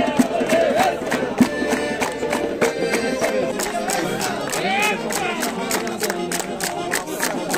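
Accordion dance music with a fast, sharp percussive beat about four to five times a second, with crowd voices.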